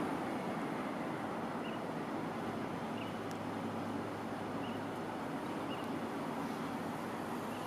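Steady outdoor street ambience: a low, even hum of distant traffic, with a few faint high chirps spaced about a second apart.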